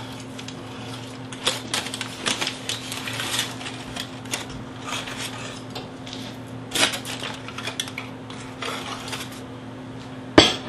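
Aluminium foil crinkling and crackling in irregular bursts as it is handled around ribs, over a steady low hum. Near the end comes one sharp knock, a glass measuring cup set down on the counter.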